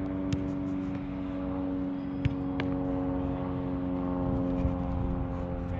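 A steady mechanical drone with a held, engine-like hum, broken by a few sharp knocks, the loudest a little over two seconds in.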